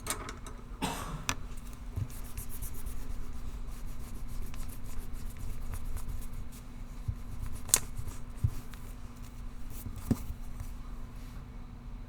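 Pencil scratching on paper in quick, fine strokes, over a steady low hum. A short noisy burst comes about a second in, and there are a couple of sharp taps later on.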